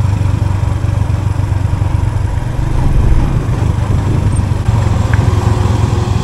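Suzuki GS150's single-cylinder four-stroke engine running steadily under way, heard from on the moving motorcycle as a continuous low hum under steady road noise.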